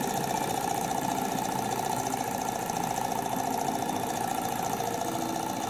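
HA001 miniature alcohol-fired model engine running fast, its flywheel spinning, with a steady whir of rapid ticks at an even level.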